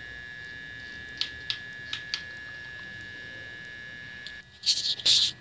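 Steady high-pitched electronic whine from a Bedini motor rig, with a few faint clicks. The whine cuts off about four and a half seconds in, and loud rustling handling noise follows.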